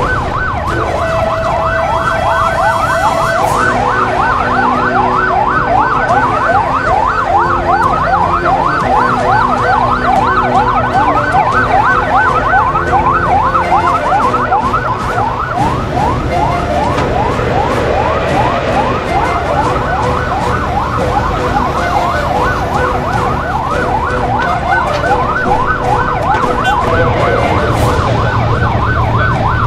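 Electronic siren in a fast yelp, its pitch sweeping up again and again at about four times a second, over a steady low drone. About halfway through the sweeps fade for a few seconds and a slower rise-and-fall tone comes through, then the yelp resumes.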